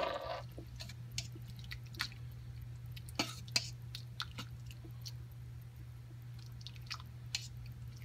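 Spoon scraping shredded chicken into a pot of soup and stirring it: soft wet squishes with scattered light taps and clicks of the spoon against the stainless-steel inner pot, over a steady low hum.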